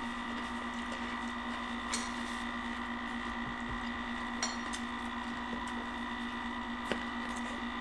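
Steady electric hum of a tabletop fondue fountain's motor pumping cheese sauce, with three faint clicks of eating and handling food about two, four and a half and seven seconds in.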